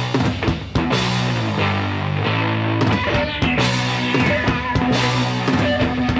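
Background rock music with a steady drum beat and sustained guitar notes.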